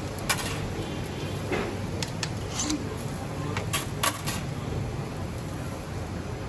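Scattered sharp clicks and knocks over a steady low hum, with faint voices in the background.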